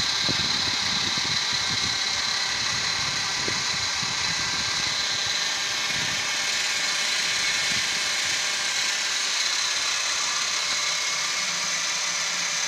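Small electric motor and rotor of a toy RC helicopter running with a steady high whine.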